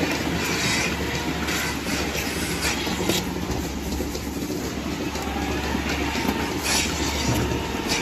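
Milking parlour equipment running: a steady low hum with clicking, broken by several short hisses of air as milking clusters are put on the cows' teats.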